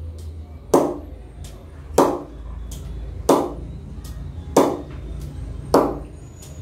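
Leather cricket ball bounced off the face of a freshly knocked-in DSC cricket bat, five sharp cracks about a second and a quarter apart, each with a faint tick in between. It shows the sound of a bat that has had about 5000 knocks of knocking-in.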